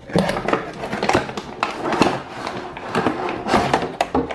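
Cardboard toy box and loose plastic parts being handled and moved about: irregular rustling, taps and knocks.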